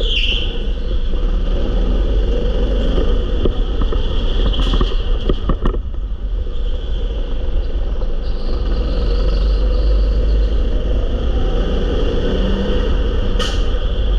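Go-kart driving at speed round an indoor track, heard from on board: a steady deep rumble with a continuous higher whine, broken by a few sharp knocks around five seconds in and again near the end.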